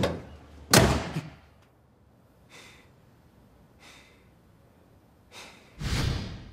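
A door slams shut about a second in, followed by a man's faint breaths and a louder rushing sound near the end.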